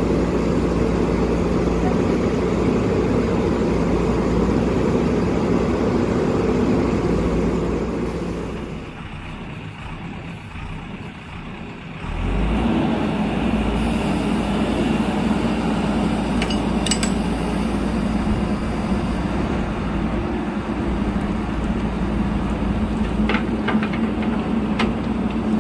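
Diesel engine of a JCB 3DX Super backhoe loader running hard as it tows a stuck pickup truck out of a drain. The engine sound drops for a few seconds in the middle, then picks up again, with a few light clinks later on.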